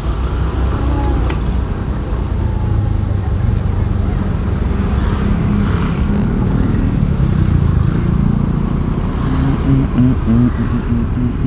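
Motorcycle riding through slow, congested traffic: its engine and road noise make a steady rumble, with the surrounding cars mixed in.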